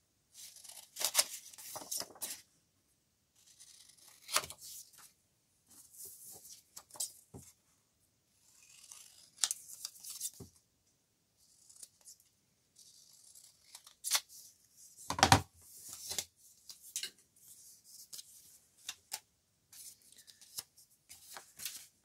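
Scissors snipping through paper in short bursts, mixed with paper rustling and handling. One sharper knock about fifteen seconds in is the loudest sound.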